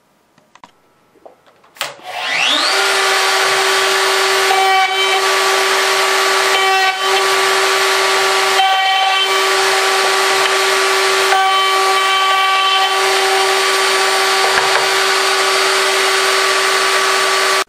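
Router in a router table switching on about two seconds in, its motor whining up to speed and then running steadily at a high pitch, fitted with a 1/4-inch bit. The sound dips briefly a few times while it runs.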